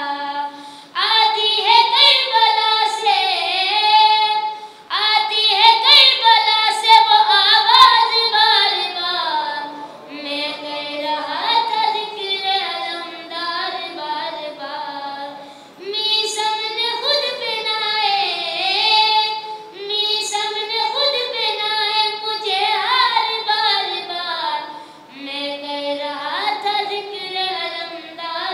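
A boy singing a manqabat, a devotional praise song, solo into a microphone with no instruments: long phrases with bending, ornamented pitch, broken by short pauses for breath every few seconds.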